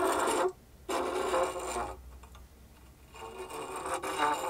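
The tip of a 1/8-inch bit on a hand-turned CNC tramming jig scraping across the spoilboard in uneven bouts, dying away for about a second in the middle. The scrape drops out where the bit loses contact with the bed, the sign that the spindle is out of tram, leaning so that one corner of the bed sits lower.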